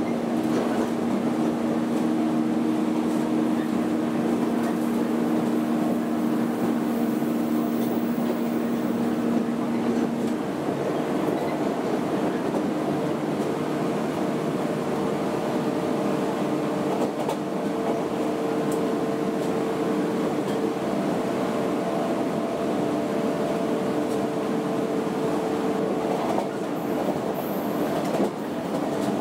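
Onboard a JR 115 series motor car running along the line: the steady hum of its MT54 traction motors and gearing over the rumble of wheels on rail. The pitch of the hum shifts about ten seconds in, from a lower pair of tones to a higher one.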